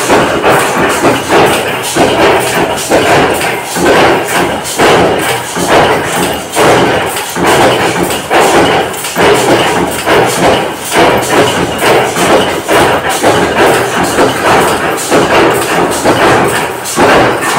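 Mechanical power press stamping through a fastener die: repeated heavy thumps in a steady rhythm over constant machine noise.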